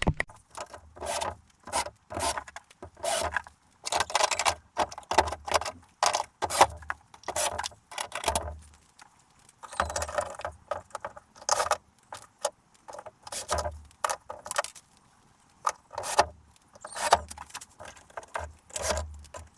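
Hands and tools fitting a wired switch-and-socket board: an irregular string of clicks, scrapes and light metallic clatter with dull knocks on the board.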